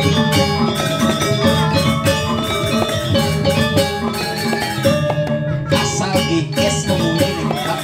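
Balinese gamelan music: metal-keyed instruments ringing in quick runs of struck notes, with drumming.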